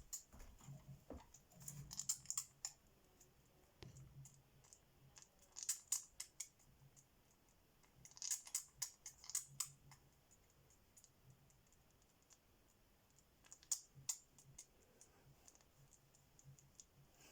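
Parrot making short runs of quick, sharp clicks, four clusters of several clicks each with quiet gaps between.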